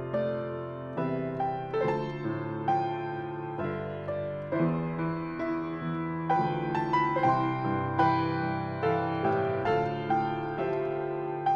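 Solo piano playing a slow, gentle piece, chords and melody notes struck about once a second and left to die away.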